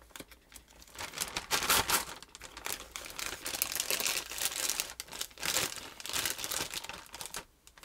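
Plastic zip-lock bag crinkling in repeated bursts as hands turn it over and work at its seal.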